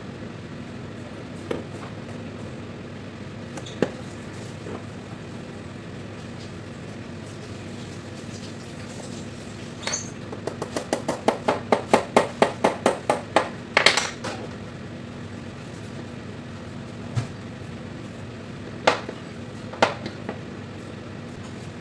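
Metal parts of solenoid valves and brass valve blocks being handled: scattered sharp clicks and knocks, with a run of about a dozen quick, evenly spaced clicks at about four a second around the middle, ending in a louder clatter. A steady low hum underneath.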